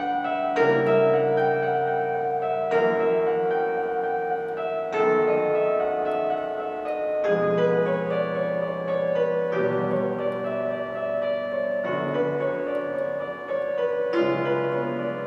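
Klavins Una Corda piano played in slow, sustained chords, a new chord struck about every two seconds and left to ring.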